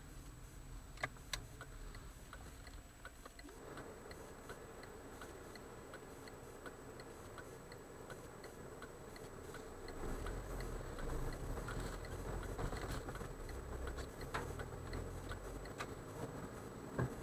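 Faint in-cabin car sound picked up by a dashcam microphone: a steady, regular ticking about twice a second, typical of a turn-signal indicator. Under it is a low road and engine rumble that grows louder about ten seconds in as the car pulls away, with a few sharper clicks.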